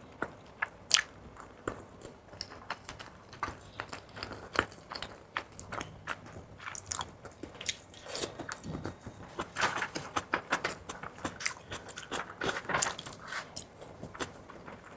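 Close-miked biting and chewing of fried fish balls: many short, sharp clicks of crunching, thickest from about eight to thirteen seconds in.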